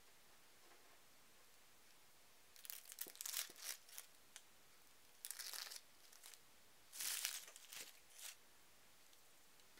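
Dry, papery onion skin being peeled off a halved onion by hand, crackling and tearing in three short bouts, the first about two and a half seconds in.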